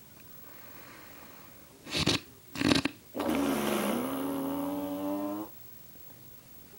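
A person snoring loudly in deep sleep. Two short, harsh snorts come about two seconds in, followed by one long pitched snore lasting about two seconds.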